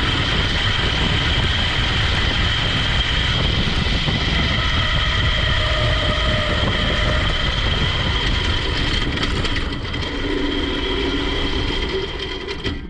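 21 hp vertical-shaft small engine on a motorized couch, running loud and steady while driving. About ten seconds in it drops in level, then falls away just before the end as it slows down.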